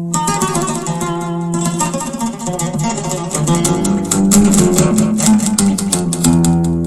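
Solo oud playing: fast plucked melodic runs, with low notes ringing beneath the melody.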